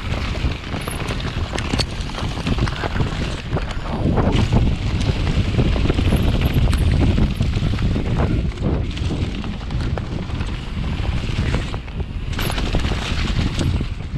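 Downhill mountain bike riding fast down a muddy trail, heard from a chest-mounted action camera: wind rushing over the microphone over a heavy rumble of tyres churning through mud, with short clicks and knocks as the bike rattles over roots and bumps.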